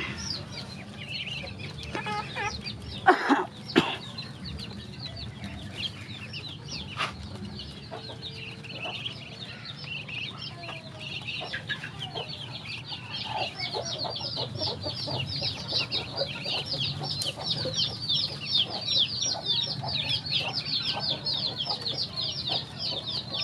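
A crowd of ducklings peeping, rapid high-pitched calls that become dense and continuous from about halfway through. Two sharp knocks a little after three seconds in are the loudest sounds.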